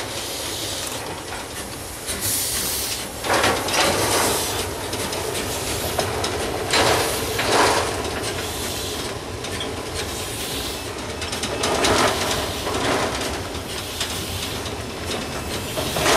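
Orenstein & Koppel 700 mm gauge steam locomotive passing slowly with its coaches, its steam hissing in pairs of beats that come every few seconds over a steady rumble of the train running.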